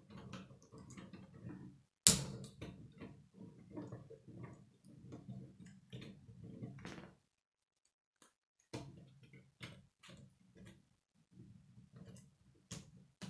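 Plastic K'nex rods and connectors clicking and snapping together as they are fitted by hand, a run of small irregular clicks with one sharp, loud snap about two seconds in. The sound drops out for about a second and a half in the middle.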